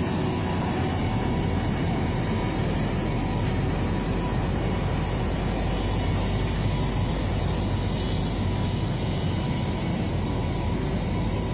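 Heavy road-resurfacing machinery running steadily, a continuous low engine rumble with a faint steady high tone over it.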